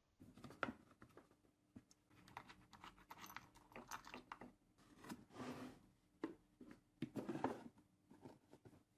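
Irregular clicks, taps and short crunchy scrapes of hands handling and working an old wooden tool box.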